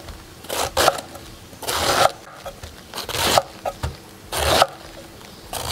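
Large kitchen knife shredding a head of cabbage on a wooden cutting board: five slow strokes, each a crunch through the leaves ending in a tap of the blade on the board, about one stroke a second.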